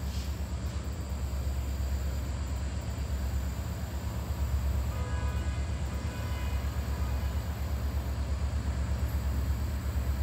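Diesel locomotive approaching slowly, its engine giving a steady low rumble. About five seconds in, a faint high-pitched tone sounds for a couple of seconds.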